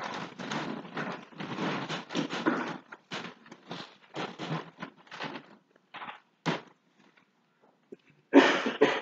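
A congregation sitting back down in wooden pews: clothes rustling, shuffling and knocks, densest in the first three seconds and then thinning to scattered sounds. A single louder noise comes near the end.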